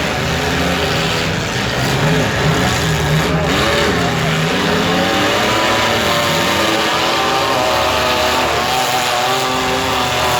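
Several compact-car engines revving at once, their pitches rising and falling over one another as the derby cars run and push in the arena.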